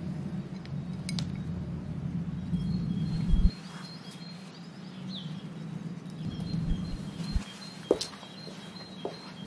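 A gloved hand pressing soil into a plant pot makes a rustling, scraping noise that ends in a thump about three and a half seconds in. Small birds chirp repeatedly in the background, with a couple of light knocks near the end.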